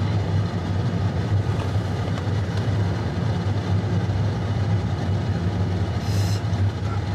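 Steady engine and road noise heard inside a moving car: a continuous low drone. A brief high hiss comes about six seconds in.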